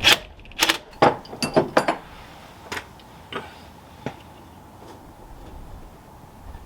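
Metal tools clinking and knocking while working a puller: a quick run of sharp strikes in the first two seconds, then a few single clinks spaced about a second apart.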